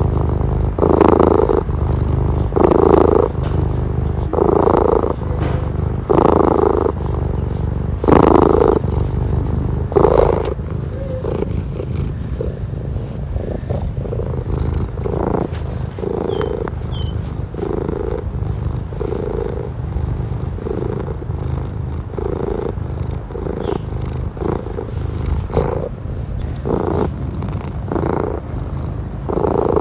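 Domestic cat purring close to the microphone, a steady low rumble that swells with each breath. The swells come about every two seconds at first, then softer and somewhat quicker after about ten seconds.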